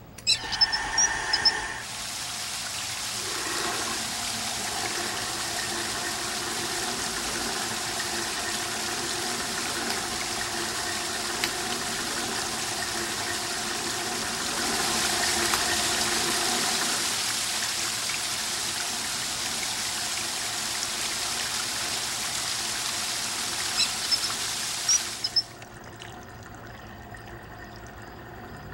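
Water running steadily as a full, even hiss. It is turned on just after the start and shut off abruptly about 25 seconds in, with a few small clicks at each end.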